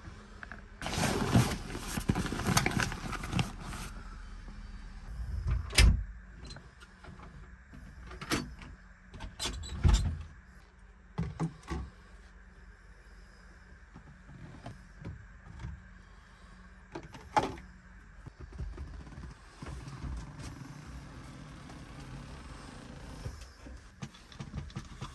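Handling sounds in a bus's private seat compartment: a loud rushing scrape lasting about three seconds near the start, then scattered clicks and knocks as the seat and its fittings are touched.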